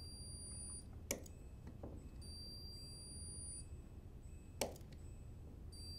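Handheld spot welder firing spot welds onto a strain gauge's steel mounting tab: two sharp snaps about three and a half seconds apart, with a fainter tick between them. About a second after each snap comes a faint high-pitched tone lasting about a second and a half, over a low steady hum.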